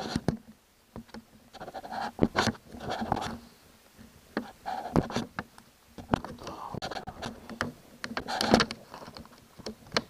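Close handling noise on a laptop's bottom cover: irregular clicks, taps and scuffs of fingertips and hands working over the panel near its screws.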